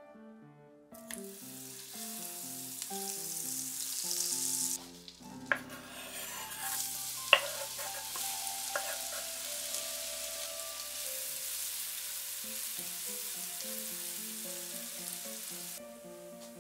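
Oil and butter sizzling in a nonstick frying pan. About five seconds in, diced onion is slid in with a couple of sharp knocks, and the onion keeps frying until the sizzle cuts off near the end. Background music plays throughout.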